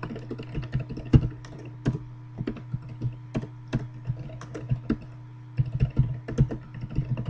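Typing on a computer keyboard: irregular keystrokes with a short pause about five seconds in, over a steady low hum.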